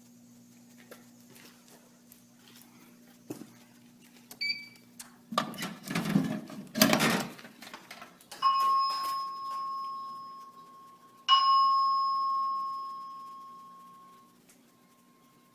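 Clattering handling noise, then two chime tones about three seconds apart, each struck and ringing out over a few seconds: a pre-announce chime over a voice-evacuation fire alarm system's speakers, ahead of a live voice page.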